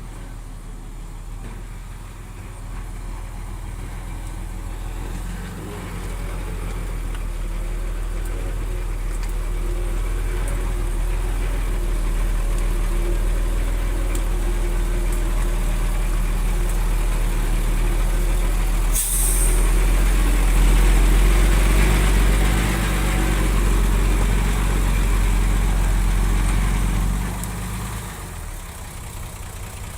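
Heavy diesel engine of earthmoving machinery working under load, growing steadily louder and then dropping back near the end. A short sharp hiss cuts in about two-thirds of the way through.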